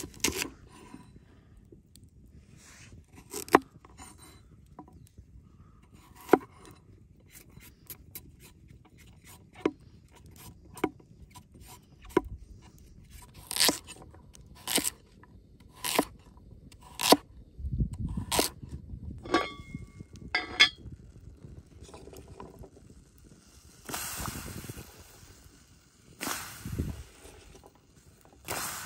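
A heavy cleaver chopping carrots on a wooden cutting board, with sharp single knocks about once a second. A brief metallic ring follows, then a long hiss and sizzle from a hot cast-iron pot near the end.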